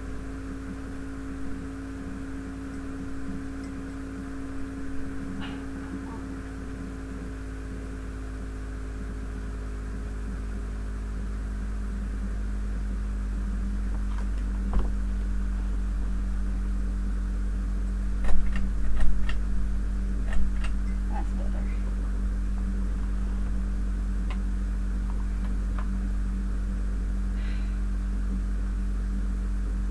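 A steady low hum that grows somewhat louder about halfway through, with a few sharp clicks and rustles about 18 to 21 seconds in.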